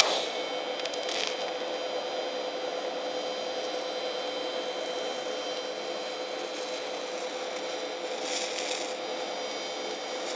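TIG welding arc on steel, a square tube being fused to a plate: it strikes up at the very start, then runs as a steady hiss with a faint steady hum.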